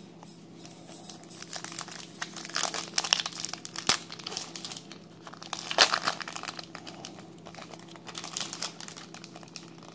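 Trading-card pack wrapper being torn open and crinkled by hand, in irregular bursts of crackling, loudest about six seconds in.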